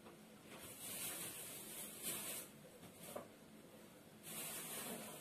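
Faint rustling of a plastic bag in three short spells, about a second in, two seconds in and near the end, as a bag of fresh dill and parsley is handled.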